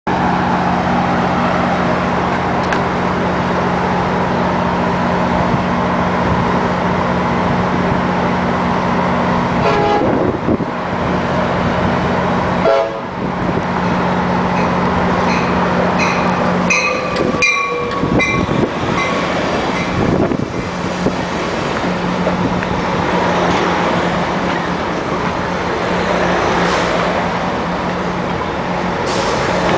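Diesel locomotive idling with a steady hum as an Amtrak Pacific Surfliner passenger train pulls into the station. The arriving train sounds a short signal with repeated high notes about halfway through. Near the end its bilevel cars roll past with a rumble.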